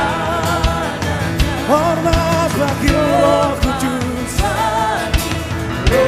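Live band music with sung vocals over a steady drum beat.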